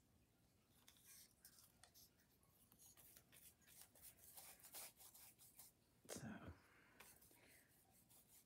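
Faint rustling and rubbing of paper as glued book pages are smoothed down by hand and worked over with a glue brush, in short scratchy strokes. A brief, louder, lower sound comes about six seconds in.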